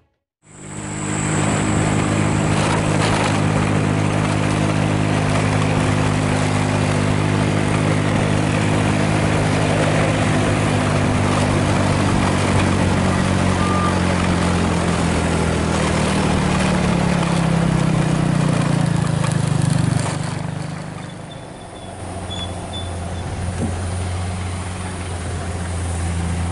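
Heavy vehicle engines running close by in slow road traffic: a deep, steady engine drone that slides in pitch about 17 seconds in and drops away about 20 seconds in, followed by another steady engine drone.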